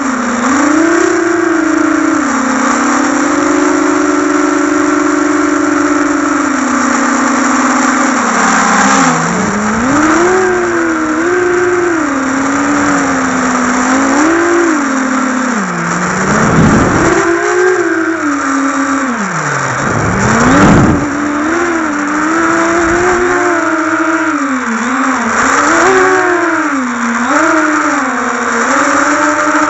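FPV drone's electric motors and propellers whining, the pitch rising and falling constantly with the throttle. A few brief bursts of rushing wind noise come in about two-thirds of the way through.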